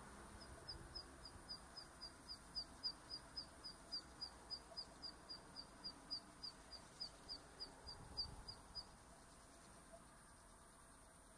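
Zitting cisticola singing: a long, even run of short, high, sharp notes, a little over three a second, stopping about nine seconds in.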